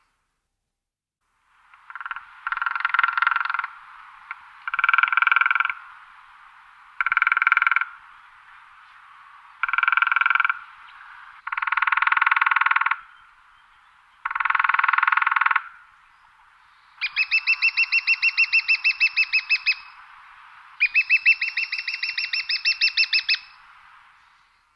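Woodpecker drumming on wood: about eight short drum rolls of rapid beak strikes with pauses between them. The last two rolls are longer and ring with a higher, clearer tone.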